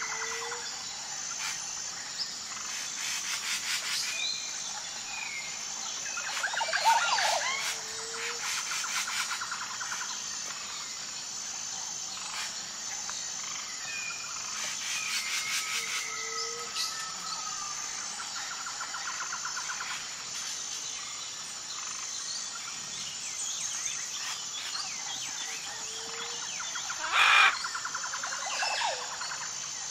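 Tropical forest ambience: mixed bird calls, chirps and whistles over a steady, pulsing high insect whine, with repeated buzzy trills and a short low call every several seconds. A louder burst of calls comes near the end.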